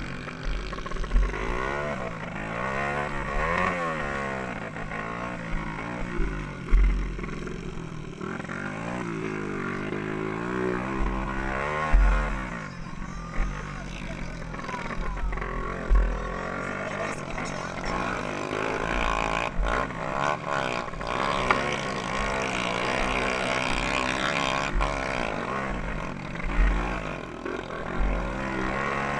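A small 125–200 cc dirt bike engine, heard from on board, revving up and down again and again as it is ridden hard round a dirt track. There are low thumps of wind on the microphone.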